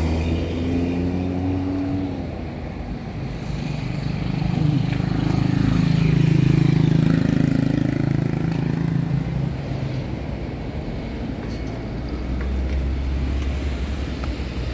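City road traffic: engines of cars running along the street, with one vehicle growing louder, passing about six or seven seconds in, and fading away.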